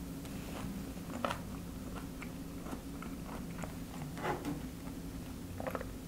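Close-up chewing of a mouthful of pork and kimchi, with scattered small clicks and mouth sounds over a steady low hum.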